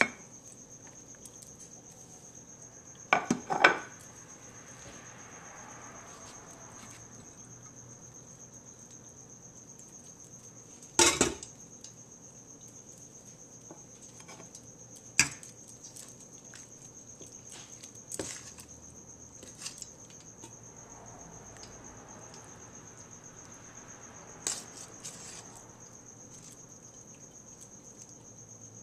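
Scattered clinks, scrapes and knocks of a metal slotted spoon against a stainless steel pan and a ceramic plate, a few seconds apart, with a sharp knock about a third of the way in the loudest. A steady high-pitched whine runs underneath.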